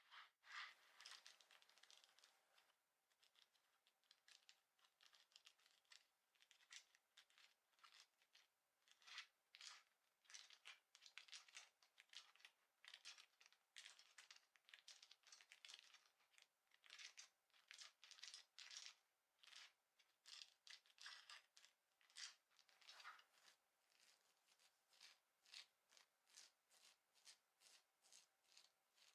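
Quiet scratching on clothing fabric: quick repeated strokes, several a second, in runs with brief pauses.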